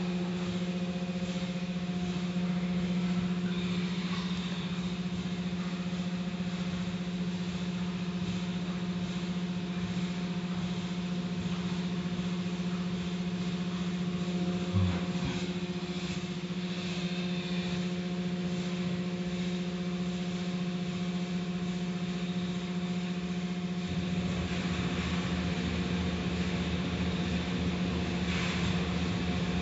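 Automatic tunnel car wash running: a steady machine hum from the wash equipment over the hiss of water spraying onto the car, with one short thump about halfway through. The low rumble grows heavier near the end.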